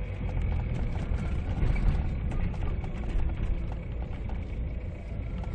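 SsangYong Rexton W diesel engine idling or creeping in slow traffic, heard from inside the cabin as a steady low rumble.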